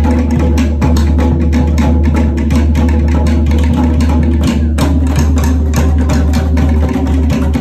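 Live Tahitian drumming: wooden slit log drums (to'ere) struck in a fast, driving rhythm together with a large skin drum.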